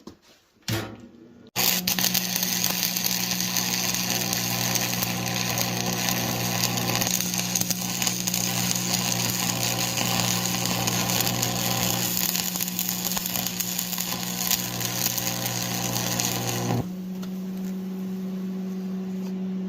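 Stick arc welding with a Lincoln Electric 225 stick welder: a steady crackling, sizzling arc over an electrical buzz, starting about a second and a half in. The arc stops near the end, leaving only a steady electrical hum.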